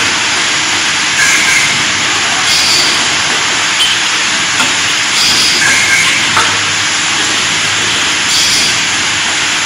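Steady loud hiss of running workshop machinery, with short faint high chirps every second or two.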